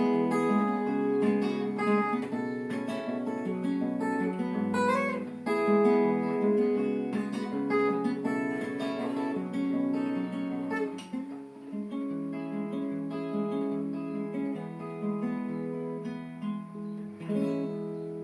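Acoustic guitar playing an instrumental outro to a folk song, picked and strummed, dying away near the end.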